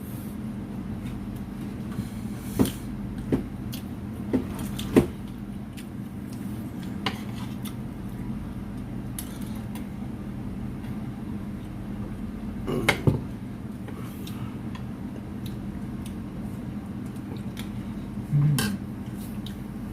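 Cutlery clinking against plates during a meal, in a scattered run of short, sharp clinks over a steady low background hum.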